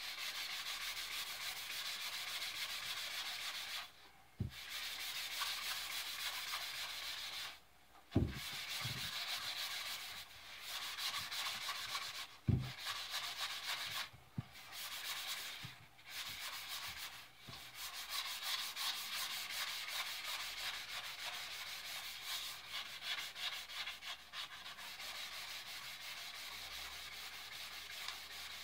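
Fine side of a two-sided abrasive rubbed back and forth along a wooden ax handle, a steady scratchy sanding hiss that buffs the wood fibers soft once the factory varnish is off. The rubbing breaks off briefly a few times, and there are a few dull knocks.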